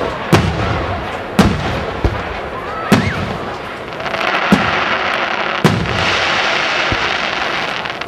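Aerial firework shells bursting overhead, a string of sharp booms about a second apart. From about four seconds in, a dense crackle of crackling stars runs for some three seconds.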